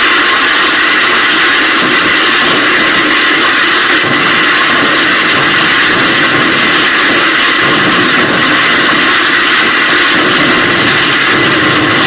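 Steady, loud din of many firecrackers going off together, merging into a continuous crackling noise with no single bang standing out.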